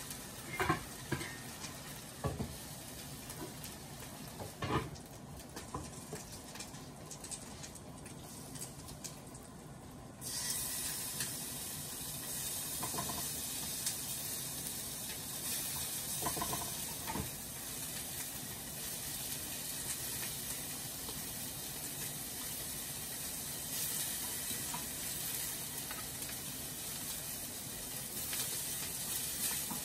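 Meat slices and bánh xèo batter frying in oil in frying pans. There are a few clinks of utensils against the pans in the first ten seconds, then a steady high sizzling hiss comes in suddenly and holds.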